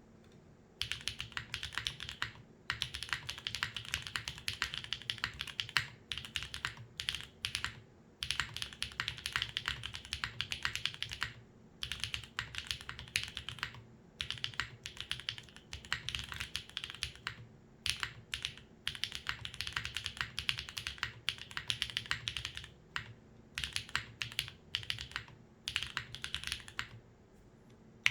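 Typing on a Transition TKL mechanical keyboard with stock Gateron Quinn tactile switches, aluminium plate, case foam and GMK keycaps: fast runs of keystrokes starting about a second in, broken by brief pauses every few seconds.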